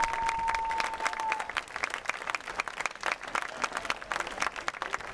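Audience applauding, with dense, irregular clapping. A single high note glides up and is held for about a second and a half at the start.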